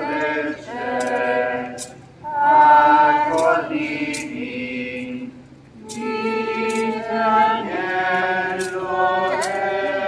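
A group of voices singing a slow sacred hymn in long held phrases, with short sharp metallic clinks now and then from the chains of a swung thurible.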